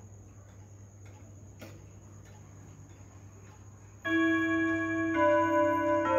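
Mauthe pendulum wall clock with an eight-rod chime: faint ticking and a single click at first, then about four seconds in the hammers strike the gong rods in a quarter-hour melody, each ringing note held and overlapping the next. The chime is set off by the minute hand being advanced to quarter past.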